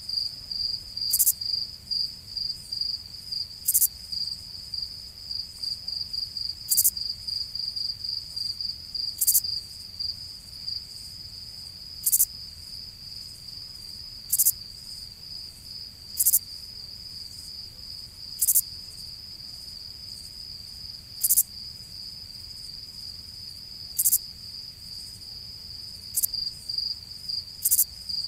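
Crickets chirping at night in a fast, continuous pulsing trill, with a louder, sharper chirp standing out about every two to three seconds.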